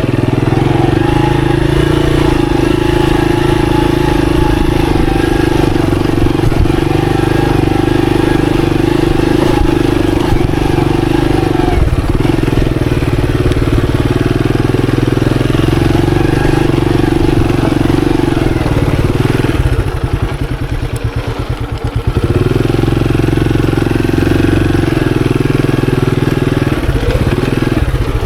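Monarch Axis 125's 125 cc single-cylinder engine pulling steadily under way on a trail. About twenty seconds in the throttle is eased off and the engine drops to an uneven, pulsing note for a couple of seconds before picking up again.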